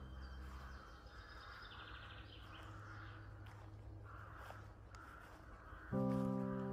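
Faint outdoor bird calls and chirps, with a short trill about two seconds in. Near the end, background music comes in loudly with sustained chords.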